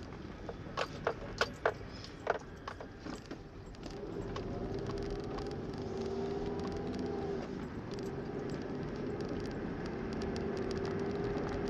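Inside a moving car: a few sharp clicks and jingles in the first two and a half seconds, then the car's engine and road noise grow louder from about four seconds in and settle into a steady hum.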